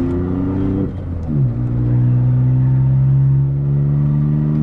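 Volkswagen Up TSI's turbocharged 1.0 three-cylinder engine under way with its exhaust removed, running on just the pipe, heard from inside the car. It rises in pitch as it accelerates, drops sharply at a gear change about a second in, then pulls steadily again.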